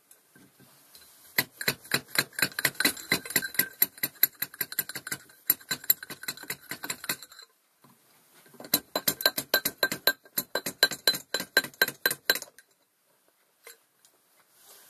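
Rapid hammer taps on a punch or screwdriver driving an old oil seal out of the bore of a steel gear, each tap making the gear ring metallically. There are two runs of about five taps a second, with a short pause in the middle and a stop near the end.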